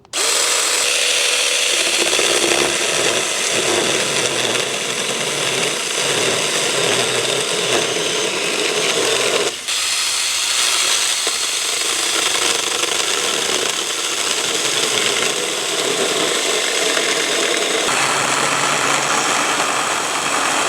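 Cordless 20 V brushless 6-inch mini pruning chainsaw starting abruptly and cutting through a 3-inch log. It runs free with a steady whine for about two seconds, then settles into the rougher sound of the chain biting wood. It stops briefly about ten seconds in, then cuts on.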